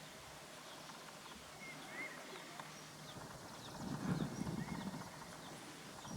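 Faint bird chirps: short, high, scattered notes, some sliding slightly in pitch. About four seconds in, a louder stretch of lower, noisy knocking or rustling rises and fades.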